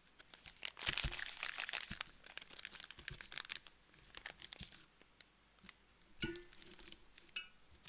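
Packaged Teeccino coffee-alternative bag crinkling and crackling as it is handled and turned over in the hands, most densely in the first few seconds, then in scattered crackles.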